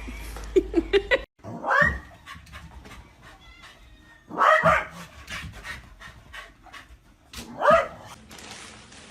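A dog barking three times, a few seconds apart.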